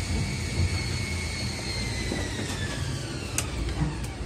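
Tokyu 8500-series electric commuter train heard from inside the car: a high motor whine holds steady, then falls in pitch as the train slows at a platform, over a constant rumble of wheels on rail. Two short sharp clicks come near the end.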